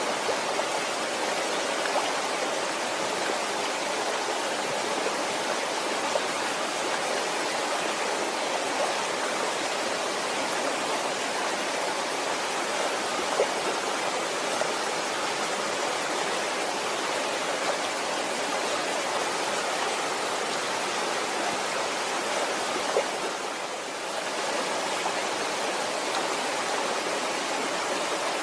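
Waterfall: water pouring and splashing in a steady, dense rush, with faint scattered droplet ticks and a brief dip in level near the end.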